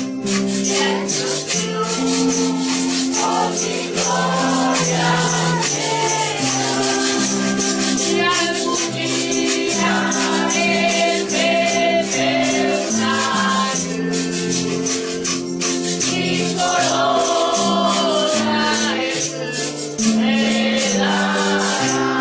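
Church hymn music with held chords and a melody line over a steady rattling shaker or maraca rhythm.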